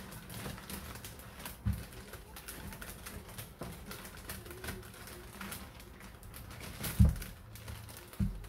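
Handling noise: scattered light clicks and rustles, with a dull thump about two seconds in and a louder one about a second and a half before the end.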